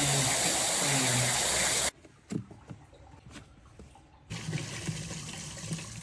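Cold water gushing hard from a tap into a plastic flow-rate measuring cup, with the supply giving only about 16 litres a minute; it stops abruptly about two seconds in. After that come a few faint clicks and knocks, then a low steady background noise.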